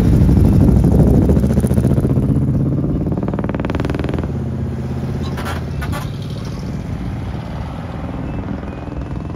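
A motor vehicle's engine running, loud at first and fading steadily as it moves away, with a brief louder, higher spell about three to four seconds in.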